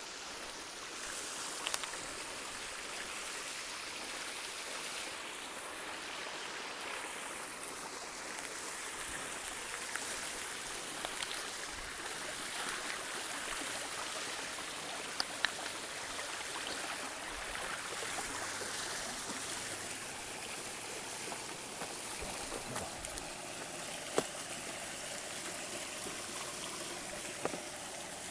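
A small stream or brook running, a steady rush of water with a few faint ticks over it.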